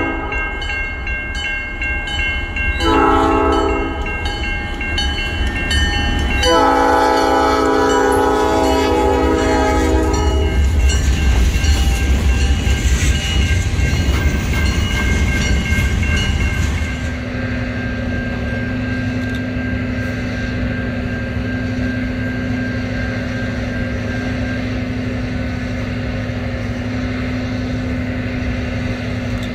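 A freight locomotive's horn sounds the end of a crossing signal. One long blast ends just after the start, a short blast comes about three seconds in, and a final long blast of about four seconds follows, over the low rumble of the approaching locomotive. The train then rolls past with wheel-on-rail noise, and about 17 seconds in this gives way to a steadier, quieter low engine drone.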